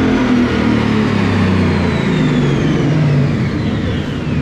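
Twin-turbocharged 2019 Ford Mustang GT's 5.0 Coyote V8 running loud on a chassis dyno around a pull, with a high whine that falls steadily in pitch, as the car winds down on the rollers.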